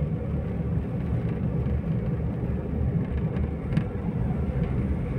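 Car engine and road noise heard from inside the moving car's cabin, a steady low hum.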